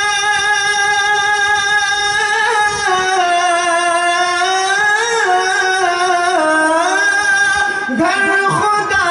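A man singing an Urdu naat into a microphone, drawing out one long melismatic note: held steady at first, then sliding down and wavering through several lower pitches, with a new phrase starting near the end.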